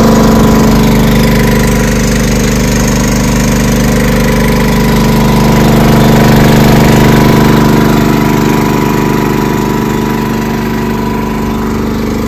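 Small petrol engine of a fire-fighting water pump running steadily, driving the pump as it sprays water.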